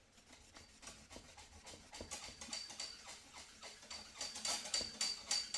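Fine-grit wet sandpaper on a hand sanding block rubbing back and forth over automotive clear coat during color sanding, in quick, even strokes, about three or four a second, growing louder toward the end.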